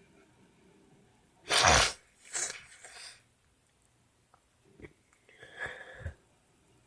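A person sneezes once, a loud sudden burst about a second and a half in, followed by quieter breathy sounds.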